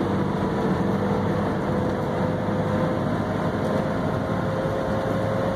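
Steady road noise inside a moving car: engine drone and tyre rumble at cruising speed, with an even hum held throughout.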